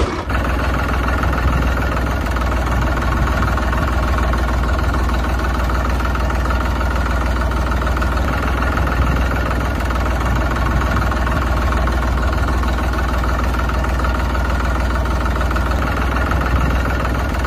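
Tractor engine sound effect idling steadily: a loud, even, unchanging drone with a strong low hum.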